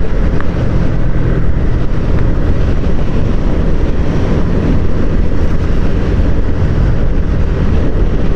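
Yamaha MT-15's single-cylinder engine running at a steady cruise, heard from the handlebars with wind rushing over the microphone.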